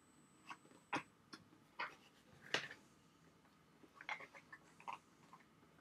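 Cardboard camera box being opened by hand: a handful of faint, irregular clicks and light rustles as the lid flap is lifted and the paper inside is handled.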